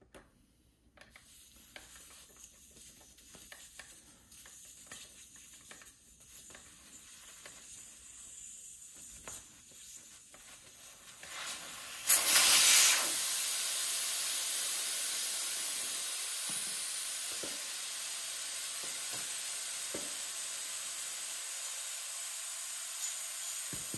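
Air hissing out of a UTV tire through the valve stem with its core removed, deflating the tire. Faint ticking of the valve-core tool being turned comes first; about halfway through the hiss starts suddenly, loudest at first, then carries on steadily.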